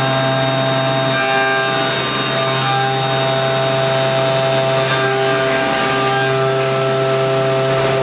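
Deckel Maho DMC635V CNC machining centre milling under flood coolant. The spindle and cutter give a steady whine of several tones over the hiss of the coolant spray, and the tones shift slightly about a second in and again about five seconds in.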